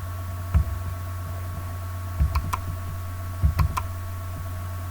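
Sharp clicks of someone working a computer, a single click then a couple of quick groups of two or three, over a steady low electrical hum.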